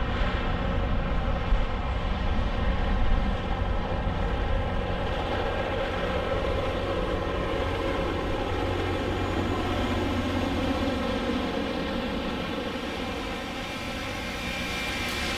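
LORAM rail grinder train running along the track: a steady, heavy diesel drone from its power cars as it approaches and passes. Its grinding units come by near the end, grinding the railhead.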